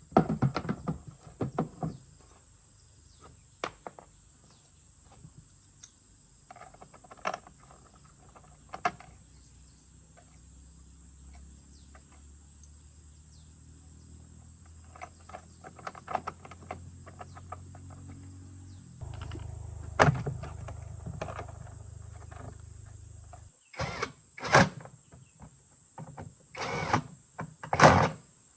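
Scattered knocks and clatter of hand work on parts. A low mechanical hum builds through the middle, gets louder about two-thirds of the way in, then cuts off suddenly. A steady high-pitched whine runs underneath.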